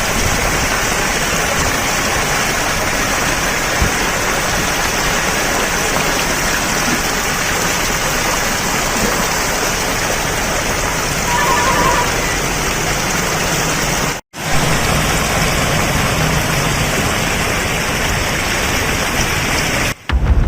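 Steady, loud rush of water with no let-up, broken once by a brief cut to silence about 14 seconds in.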